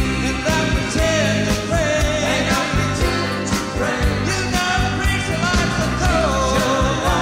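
Background rock song with a singing voice over a steady drum beat.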